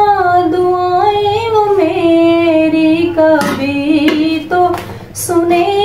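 A woman singing a slow Urdu devotional song, drawing out long held notes that slide between pitches, with no instruments heard. There is a short breath pause near the end.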